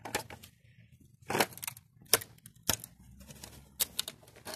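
Handling noise from a pipe being worked to collapse it: about six irregular sharp clicks and short scrapes, with quieter rustling between them.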